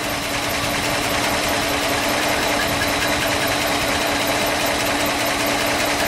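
1956 Ford Thunderbird's 312 cubic-inch Y-block V8 idling steadily, heard close up over the open engine bay.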